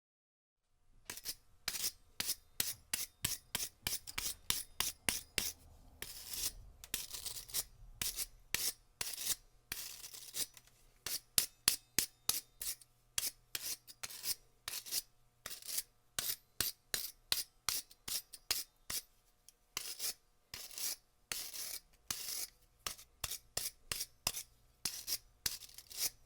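Wire brush scrubbing metal in quick back-and-forth strokes: a bright, scratchy rasp about three or four strokes a second, with a few longer, drawn-out strokes mixed in.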